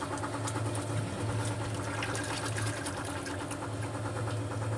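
A boat's engine running steadily: a low hum with a rapid, even clatter over it. A few light knocks come and go on top.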